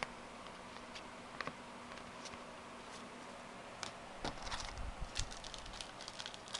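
Trading cards being handled and flipped through by hand: faint, scattered light clicks and card taps, coming more often in the second half.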